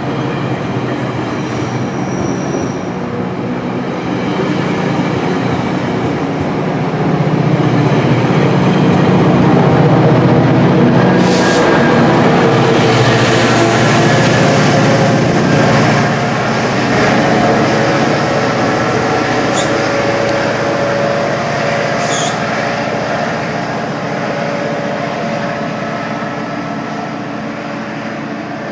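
GO Transit bilevel coaches and an MP40PH-3C diesel-electric locomotive rolling past slowly as the train pulls out, with a steady squeal of the wheels on the rails. It grows louder about seven seconds in, is loudest as the locomotive passes, then eases off as the train pulls away.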